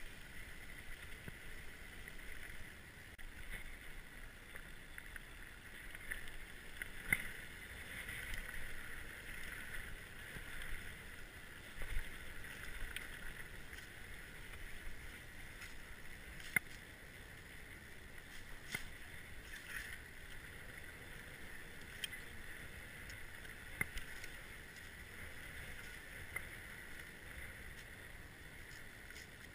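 Orbea Occam mountain bike rolling along a dry dirt singletrack: steady tyre and drivetrain noise with sharp knocks and rattles from the bike over bumps, four of them louder than the rest.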